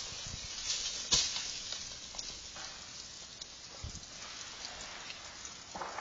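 Freezing rain falling in an ice storm: a steady hiss of sleet and ice pellets pattering, broken by a few sharp cracks and snaps, the loudest about a second in.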